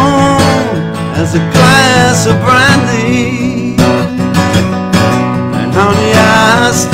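Live acoustic guitar strummed in a slow country ballad, with a lead melody that bends and wavers in pitch carried over the chords.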